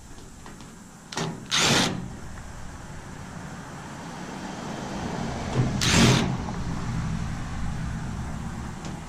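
Road traffic going past, building to a peak about six seconds in. Two short loud bursts of noise stand out, about a second in and again near six seconds.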